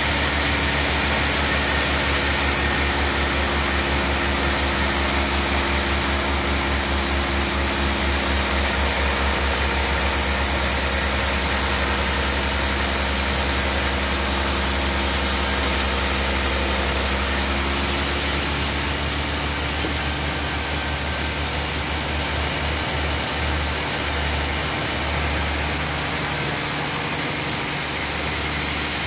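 Large sawmill bandsaw running steadily as it rips through a big hardwood slab, with a constant machine hum. Its tone changes about eighteen seconds in.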